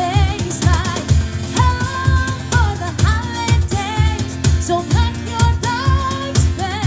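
Live acoustic pop song: a woman's lead vocal with vibrato and melodic runs over a strummed acoustic guitar and a steady cajón beat.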